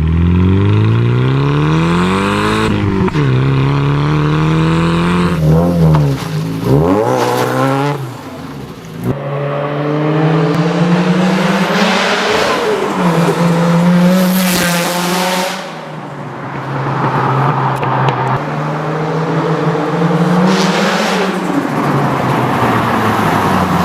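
Nissan Silvia's SR20DET turbocharged 2.0-litre inline four-cylinder being driven hard. The engine note climbs and drops sharply several times in the first few seconds, then holds a high, steadier pitch with slower rises and falls.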